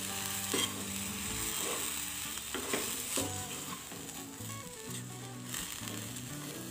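A steel spoon stirring and scraping a thick dal-and-spice stuffing around a hot kadhai, with a light sizzle of the oil under it and a few scrapes against the pan. Soft background music with held notes runs underneath.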